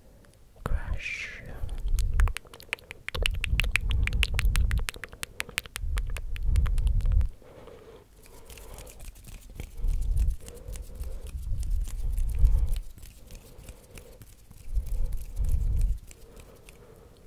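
Hands rubbing and brushing close over a foam-covered microphone: six muffled, deep swells of about a second each, with a dense crackle of small clicks, thickest in the second swell.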